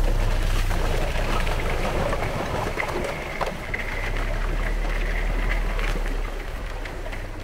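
Rosomakha ATV engine running as the quad ploughs through a puddle skinned with thin ice, its tyres cracking the ice and churning up water with a steady splashing and crunching over a low engine hum.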